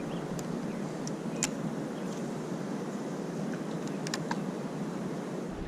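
Steady rush of fast-flowing river water, with a few faint clicks.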